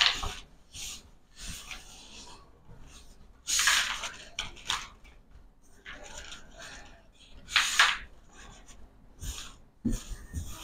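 Playing cards sliding and rubbing across a tabletop as hands sweep a spread of face-down cards together and gather them into a pile, in a series of short swishes, the loudest about four and eight seconds in.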